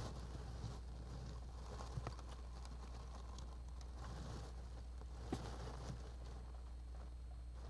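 Quiet nest-box sound: a steady low hum and hiss, with four faint clicks spread through, small movements of a Japanese giant flying squirrel inside the box.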